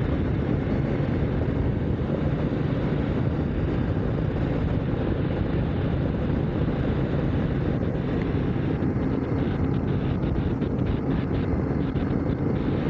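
Motorcycle engine running steadily at cruising speed, mixed with wind rushing over a helmet-mounted microphone.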